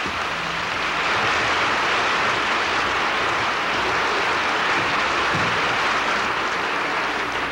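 Audience applause, a steady dense clapping that holds at an even level throughout.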